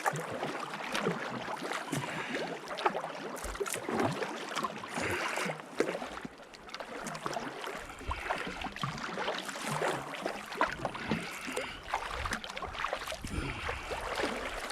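Kayak paddle strokes: the blades dip and splash in the water at an irregular pace.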